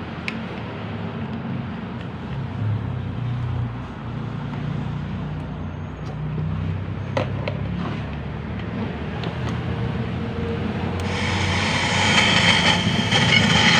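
Asatron portable FM radio, powered from a phone charger in place of its two batteries, giving a low rumble with a few handling clicks. About eleven seconds in, a loud hiss of FM static comes up as its knob is turned.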